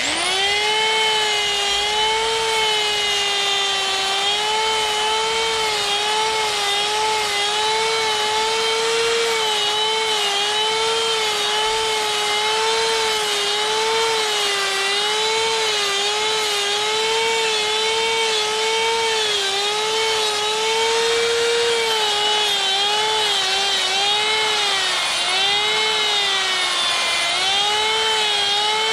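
Electric die grinder spinning a sphere burr against wood while carving lines into a bear's brow: a steady, loud high-pitched whine whose pitch wavers up and down as the burr works.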